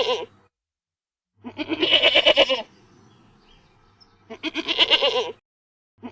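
Goat bleating: loud, quavering bleats of about a second each, with pauses between them. One bleat is ending at the start, two full bleats come about one and a half and four and a half seconds in, and another begins right at the end.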